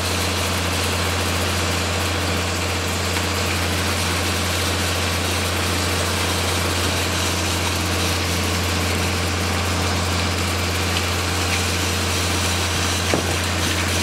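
The diesel engine of a concrete pump truck running steadily while it pumps concrete, a constant low hum. There is one brief knock near the end.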